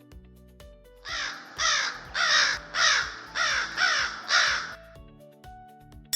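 Crow cawing seven times in quick succession, about two caws a second, each a harsh call with a falling sweep. Light background music plays underneath.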